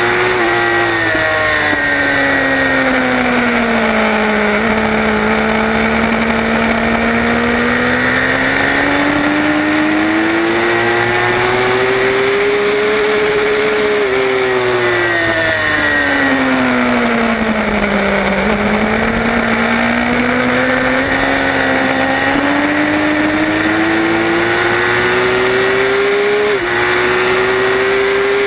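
Onboard sound of a high-revving race motorcycle engine at speed, with heavy wind rush over the microphone. The engine note climbs under throttle and falls twice as the bike slows for corners, with a short break near the end at an upshift from second to third gear.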